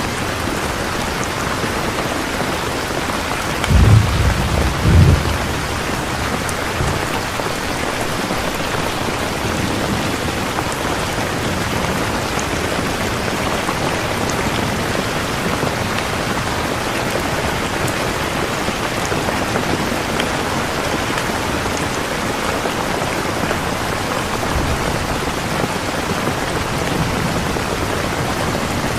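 Steady rain falling, an even hiss throughout. About four seconds in, a brief low rumble of thunder comes in two quick pulses.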